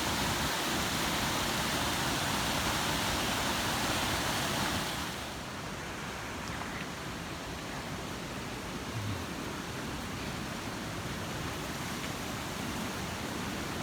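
Mountain stream rushing: a steady wash of water noise, which drops to a quieter, duller rush about five seconds in.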